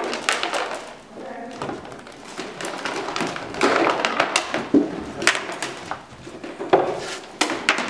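Scattered taps and knocks with low voices among them.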